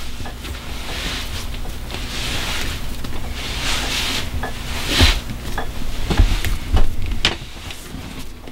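Hands kneading a large ball of sourdough bread dough on a floured wooden table: repeated soft pushes and rubbing of the dough, with dull thumps as it is pressed down against the tabletop, heaviest about five and six to seven seconds in. A low steady hum runs underneath.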